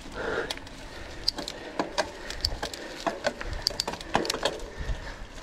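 Mountain bike rattling over a rough trail: irregular clicks and knocks from the bike over steady tyre and ground noise.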